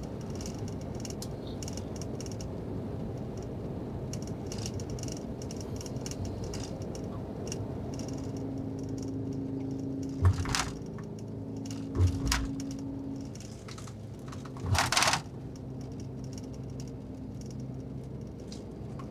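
Steady low rumble of a double-decker highway bus's cabin at cruising speed, with small clicks and rattles. There are two sharp knocks just past the middle and a louder, half-second knock a few seconds later.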